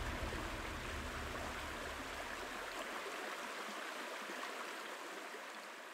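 Running water, an even rushing like a small stream, fading slowly out. A low rumble dies away about three and a half seconds in.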